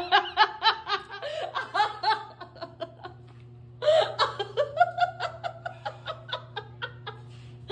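Laughter in rapid fits, in two bouts with a short pause about three seconds in, over a faint steady low hum.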